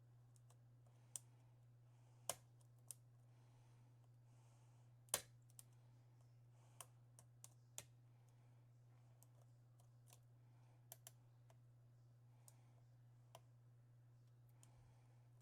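Lock pick working the pins of an Assa 6000 lock cylinder under a tension wrench: faint, irregular small clicks, the loudest about two and five seconds in. A steady low hum runs beneath.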